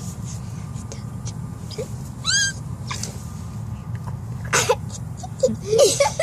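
A dog gives one short, high, rising whine about two seconds in, then two short breathy huffs, over a steady low hum.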